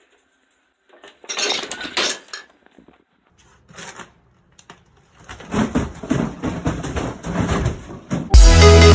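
Irregular clattering and clinking of hard objects, in bursts; about eight seconds in, loud electronic music with a heavy beat starts abruptly.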